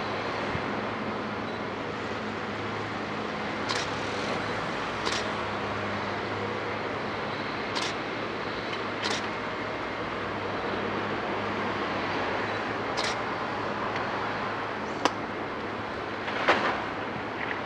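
The diesel engine and hydraulics of a Terex tracked hydraulic excavator run steadily as its sorting grab tears at timber roof beams. Short sharp cracks and knocks of breaking wood and falling debris come now and then, about seven in all, the loudest near the end.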